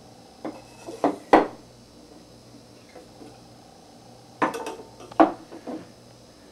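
Hollow tube covers knocking and being set down on a wooden tabletop, in two clusters of about three sharp knocks each: one cluster starting about half a second in, the other about four and a half seconds in.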